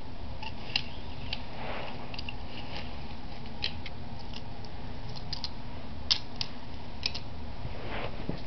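Toy cars being handled and moved on carpet: scattered small clicks and taps, with a soft rustle twice, over a steady low hiss.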